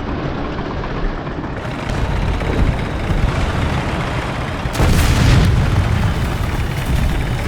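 Large explosion: a continuous deep rumble, with a louder blast about five seconds in.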